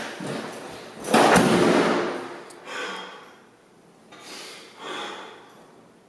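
A glass-paned front door is opened and shut hard. A loud slam comes about a second in and rings on briefly, followed by a few softer thuds.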